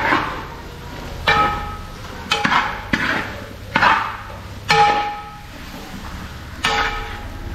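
A metal ladle knocking and scraping against a large metal cooking pot while a thick curry is stirred. There are about eight strokes, uneven in spacing, and each leaves a short metallic ring.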